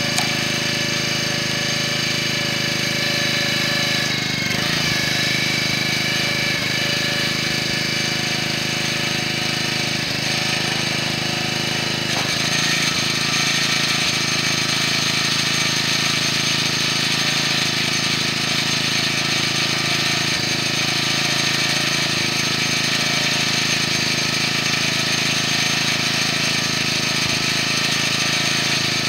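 Small gasoline engine of a towable hydraulic log splitter running steadily, with a few faint knocks in the first half.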